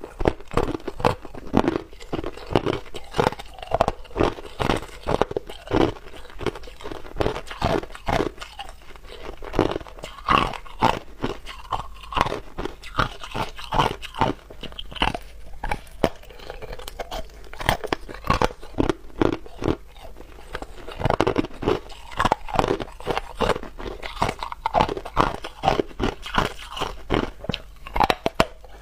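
Hard ice being bitten and crunched between the teeth, picked up by a clip-on microphone close to the mouth: a quick, irregular run of sharp cracks and crunches that keeps going throughout.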